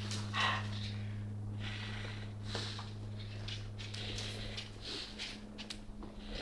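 Handling noise from a hand-held camera being moved, scattered soft scuffs and rustles over a steady low hum.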